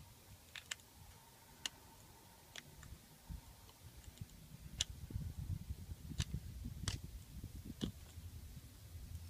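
Scattered light metal clicks, about eight in all and spaced irregularly, as snap-ring pliers work the snap ring on a tractor's PTO shaft to free the oil seal.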